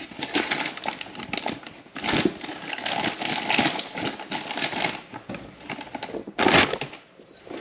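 Rustling, crinkling and small clicks of a replacement door hinge kit being handled in its packaging, with a louder rustle about six and a half seconds in.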